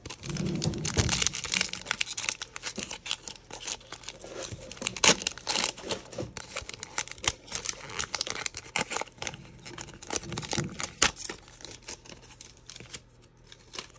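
Foil wrapper of a Donruss football card pack being torn open and crinkled by hand: a dense run of crackling and tearing, thinning out near the end.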